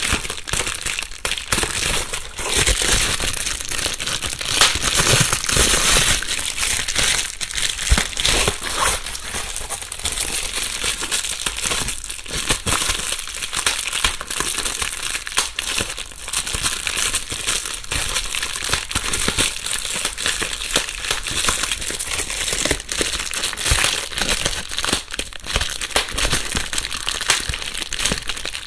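Plastic bubble wrap being crumpled and rustled by hand, a continuous crinkling with many small crackles and pops, recorded binaurally.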